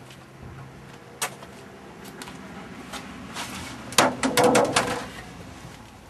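Blows in a staged fight: a single sharp knock about a second in, then a quick flurry of five or six knocks and thuds about four seconds in.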